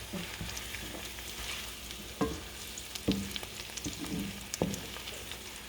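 Potatoes and garlic sizzling in a frying pan as they are stirred, with a few sharp knocks of the utensil against the pan.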